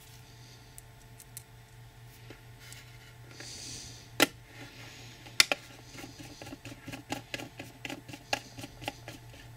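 Small irregular clicks and taps of a Phillips screwdriver and hands working on a plastic device enclosure, reinstalling the battery cover screws. They start about four seconds in, just after a short hiss, and come a few times a second, with two sharp knocks the loudest.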